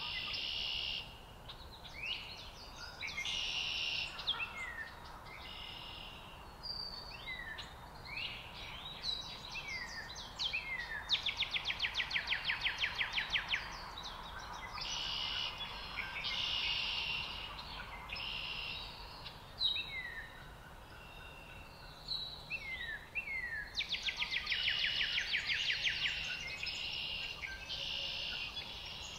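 Several songbirds singing over a steady low background hiss: short falling whistles and warbled phrases from more than one bird, with a rapid trill of about two seconds heard twice, around the middle and again near the end.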